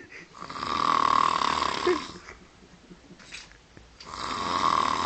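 A sleeping person snoring loudly: two long, noisy snores of about two seconds each, the second starting about four seconds in.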